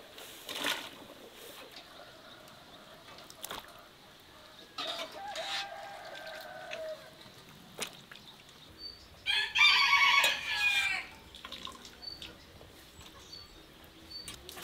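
A rooster crowing once, loudly, for under two seconds about nine seconds in, after a fainter, shorter bird call a few seconds earlier. A few faint clicks between.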